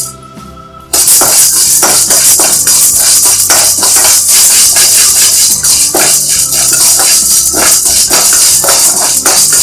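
Dry chana dal rattling and scraping against a stainless steel kadai as it is stirred with a steel spatula: a loud, uneven shaker-like rattle that starts abruptly about a second in. Background music plays underneath.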